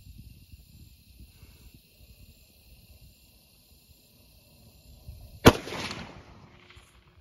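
A single rifle shot from a Christensen Arms Mesa Long Range bolt-action rifle in 6.5 Creedmoor, fired about five and a half seconds in, its report trailing off over about a second.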